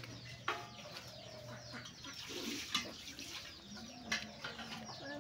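Birds calling, with many short high chirps and a few lower calls, and three sharp clicks.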